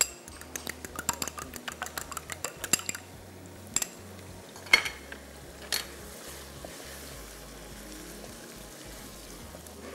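A fork beating an egg in a small bowl, rapid clinks about seven a second, then three louder knocks, the loudest about five seconds in. After that comes a steady sizzle of the beaten egg frying in the hot pan of okra and mince.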